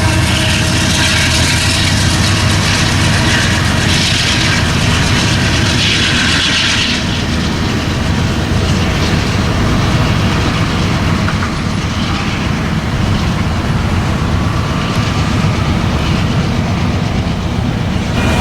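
Union Pacific freight train rolling past close by: a steady, loud rumble of wheels on rail, with a brighter rushing noise that eases off about seven seconds in.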